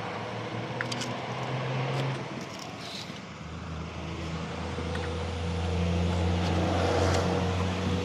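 A motor running with a steady low hum that grows slightly louder toward the end, with a few faint clicks over it.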